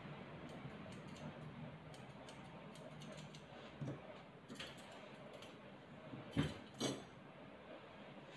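Light, irregular ticks and clicks over a faint low hum, with a louder tap about four seconds in and two sharper knocks close together near the end.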